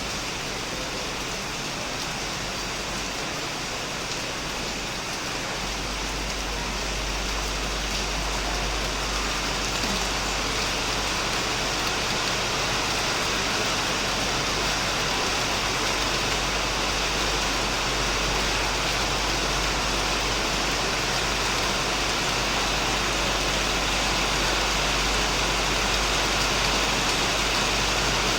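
Heavy rain falling steadily on a shed, a dense, even hiss that grows slightly louder. A low rumble joins it about five seconds in.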